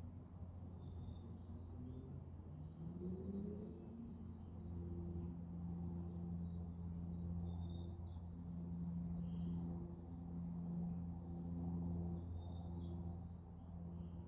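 Small birds chirping and twittering in scattered short bursts, over a louder low steady hum whose pitch slides upward for a moment about three seconds in.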